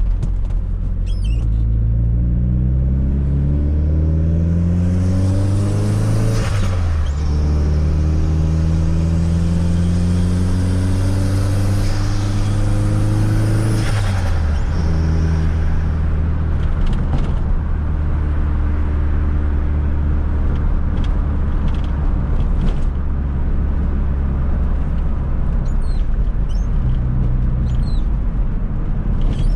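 1995 Fiat Coupe 2.0 16V Turbo's turbocharged four-cylinder engine accelerating through two gears: the pitch climbs, then drops at an upshift about seven seconds in and again about fourteen seconds in, each time with a short hissing burst of turbo flutter as the throttle lifts. After that the engine runs at a steady cruising speed.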